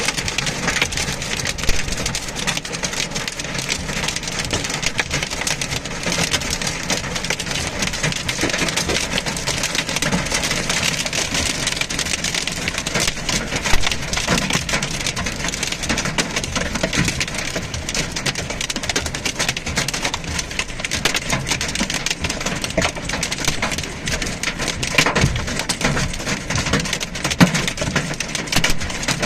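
Heavy storm rain pelting a car, a dense, steady patter of impacts with a few louder knocks.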